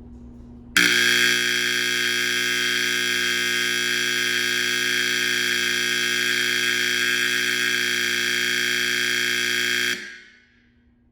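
Honeywell 4050 (SC808-A) fire alarm horn sounding one steady, unbroken tone. It comes on sharply about a second in and cuts off near the end after about nine seconds.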